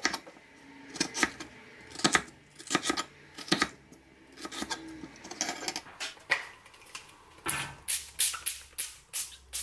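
Crinkle-cut chip cutter chopping potatoes on a wooden chopping board: sharp knocks as the blade hits the board. They come a second or so apart at first, then in a quick run of about four a second near the end.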